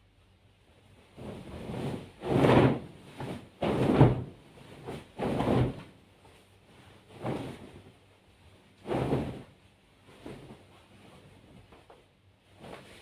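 Bedding fabric rustling and flapping in a run of irregular bursts as a comforter is shaken and worked into its cover, the loudest bursts in the first half and fading after about nine seconds.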